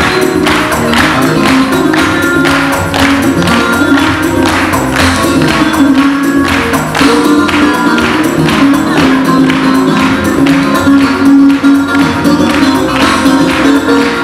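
Instrumental break of a Russian pop song with a steady beat.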